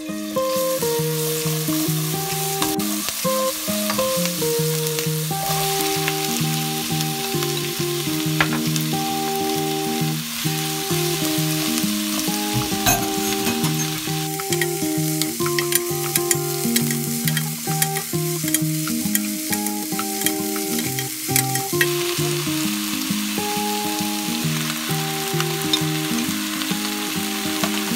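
Oil sizzling steadily in a nonstick wok as minced garlic and then chopped onion, green onion and chillies stir-fry, with a wooden spoon tapping and scraping the pan. Background music with a simple melody plays over it.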